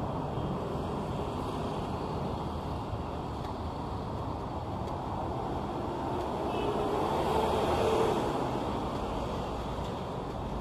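City street traffic: a steady wash of passing vehicles, with one vehicle passing closer and louder about seven to eight seconds in.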